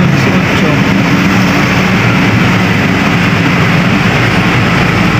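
A vehicle engine running steadily close by, mixed with street traffic as motorcycles and vans pass.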